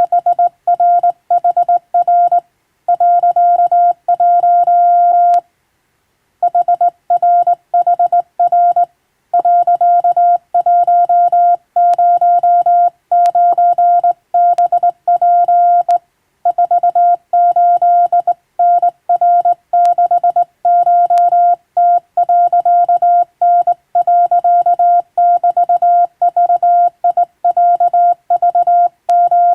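Hand-keyed Japanese (wabun) Morse code: a single steady tone switched on and off in dots and dashes, with a brief pause about five and a half seconds in.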